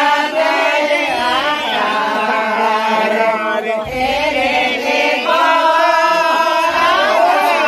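A group of men singing a Santali Danta song together in unison: a chanted melody with some long held notes.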